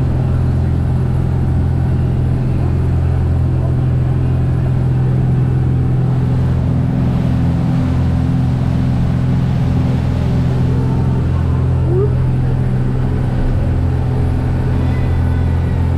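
Fishing boat's engine running steadily at cruising speed under way: a deep, even drone heard from inside the cabin.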